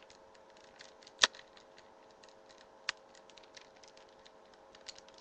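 Hard plastic clicks from a toy figure's leg and peg joint being handled: a sharp click about a second in, a softer one near three seconds and a faint one near five, among light ticks, over a faint steady hum.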